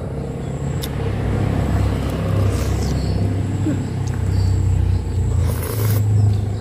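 A steady low rumble, with a spoon click about a second in and a short loud slurp of noodles near the end.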